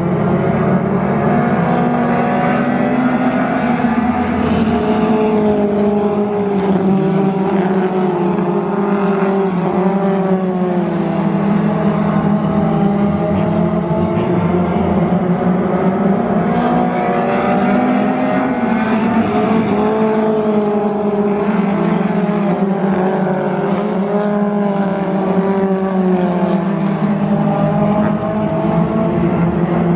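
A pack of thunder-class dirt-track stock cars racing, several engines running at once and rising and falling in pitch together every few seconds as they go around the oval.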